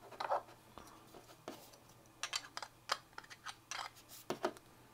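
Chunky plastic interlocking jigsaw-puzzle blocks knocking and clicking against each other and the tabletop as they are pulled apart and swapped. The clicks come singly and in small clusters at irregular intervals.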